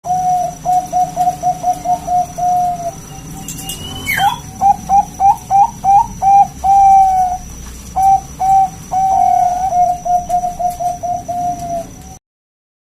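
Zebra dove (Bangkok-type perkutut) singing: runs of rapid, short, repeated cooing notes with a few longer held coos, and a brief rising higher note about four seconds in. A faint steady high-pitched whine lies under it, and the recording cuts off suddenly near the end.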